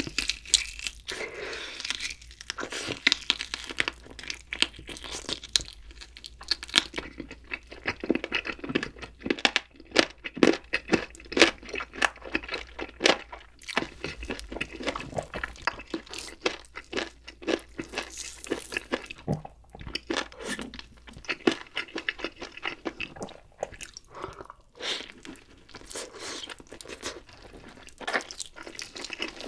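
Close-miked eating: a person biting and chewing crunchy food, with many irregular loud crunches one after another.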